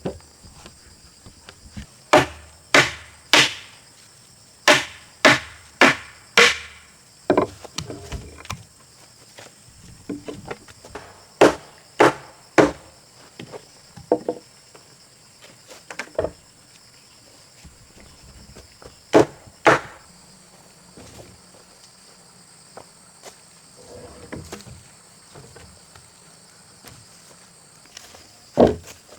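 A tool striking timber: sharp wooden blows in bursts of two to four, about two a second, with pauses between bursts. Insects buzz steadily at a high pitch underneath.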